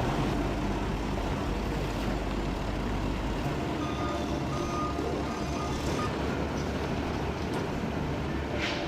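Diesel engine of a log loader running steadily under work, with a few short beeps of a reversing alarm a few seconds in and a brief hiss near the end.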